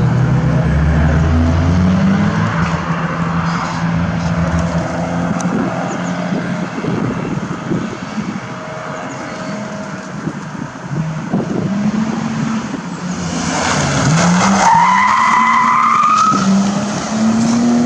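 Rally car engines driven hard, revving up and dropping back again and again through gear changes as the cars come past. A high squeal rises for about two seconds some two-thirds of the way through.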